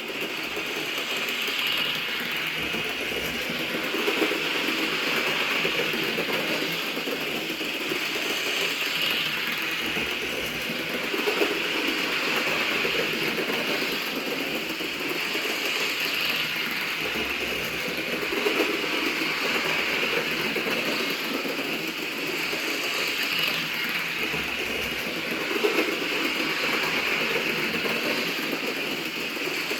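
Roco model Taurus locomotive running along the track, its motor and gears giving a steady whirring, with a short click about every seven seconds.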